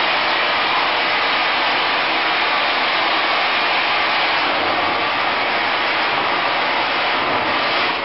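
IVAC PV500 air-powered industrial vacuum running: a loud, steady rush of air.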